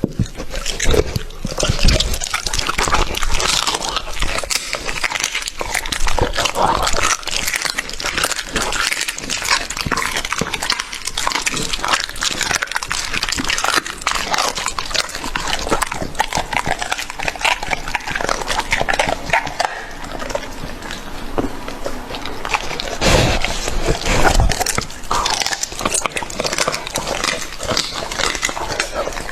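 A dog chewing raw chicken: continuous irregular crunching and wet smacking as bones and meat are bitten, with a few heavier crunches near the end.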